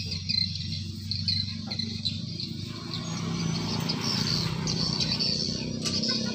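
Insects chirring steadily in a high, even haze, over a steady low hum, with a few faint knocks.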